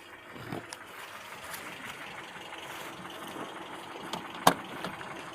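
Warm ZMZ-402 four-cylinder petrol engine idling steadily at low revs with a dull knock, caused by play between the piston pins and connecting rods in all four cylinders. A single sharp click about four and a half seconds in.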